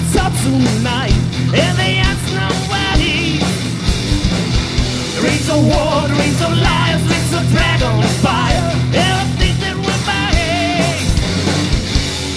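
Loud punk-style rock'n'roll song played by a band, with a singer's voice over a steady beat.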